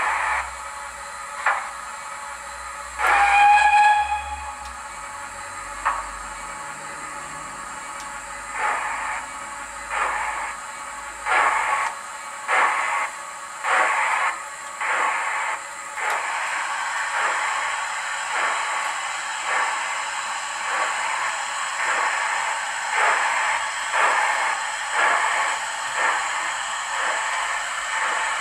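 DCC sound decoder in a 00 gauge model of a Bulleid Merchant Navy 4-6-2 steam locomotive, playing recorded steam sounds through its small loudspeaker. A short whistle blast about three seconds in, then exhaust chuffs that start slow and quicken steadily as the model pulls away, over a constant hiss.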